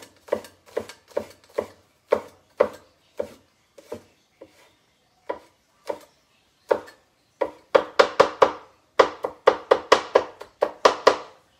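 Cleaver chopping on a wooden cutting board, mincing garlic: steady knocks about two or three a second, a few scattered strokes, then a faster, louder run of chops near the end.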